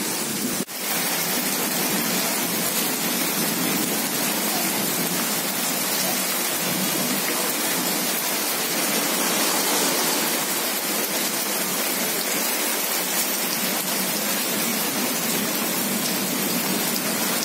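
Steady rain falling on wet ground and puddles, an even hiss of splashing drops. The sound briefly drops out just under a second in, then carries on unchanged.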